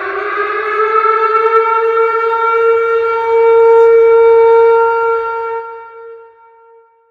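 Tornado warning siren sounding a steady wail, its pitch edging up over the first second or so and then holding. It fades out over the last couple of seconds.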